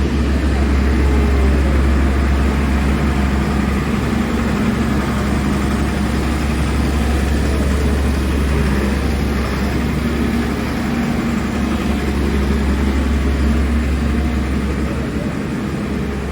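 Engine of heavy road-paving machinery running steadily at a constant pitch: a deep low rumble with a steady hum above it.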